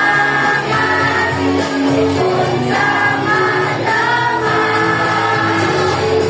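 A choir of junior high school students singing a song together, holding long notes one after another.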